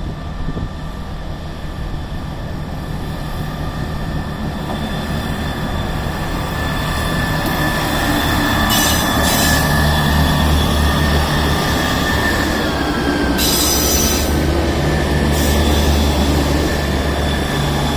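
Two coupled class 158 diesel multiple units pulling out, their diesel engines running under power with a low rumble that grows louder, over a steady high wheel squeal. Brief bursts of hissing come three times in the second half.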